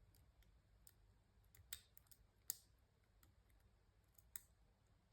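Faint, irregular clicks of a half diamond lock pick working the pins of a 6-pin ERA euro cylinder lock, about one click a second.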